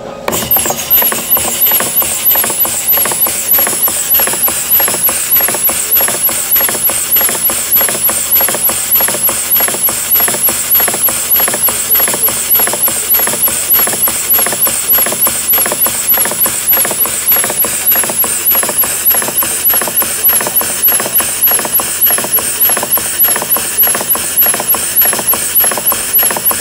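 Home-built large-bore (100 mm bore, 50 mm stroke) piston-valve steam engine running on compressed air at about 25 psi, starting as the air is turned on and then chuffing in a fast, even rhythm of exhaust puffs with a high hiss that pulses with each stroke.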